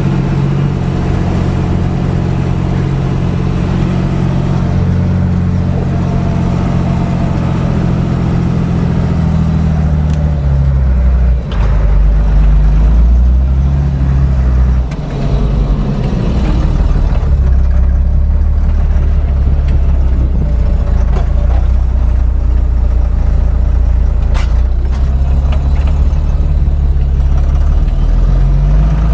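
Fendt Favorit 611 LSA Turbomatik tractor's diesel engine running under ploughing load, its engine speed dropping about a third of the way in and changing again a couple of times later. A few short knocks are heard over it.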